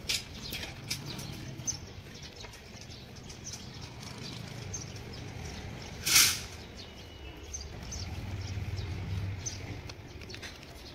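Outdoor ambience with faint bird chirps and a low steady rumble, broken by one short, loud, hissing clatter about six seconds in.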